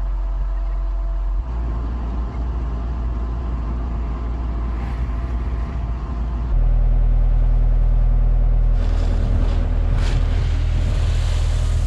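Heavy-equipment diesel engine running steadily with a low hum. Its sound changes abruptly about a second and a half in, again past the middle, and near the end, where more hiss comes in.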